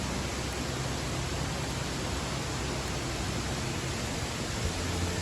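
Waterfall water rushing steadily, an even hiss with no change in level.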